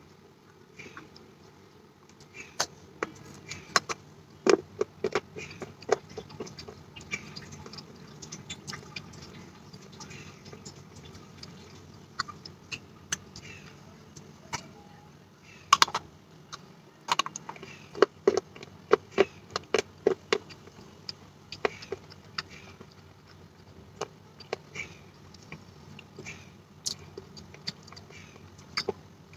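Close-miked crunching of a wet terracotta kulhad (clay cup) being bitten and chewed: irregular sharp crunches and clicks, coming in clusters with short lulls between.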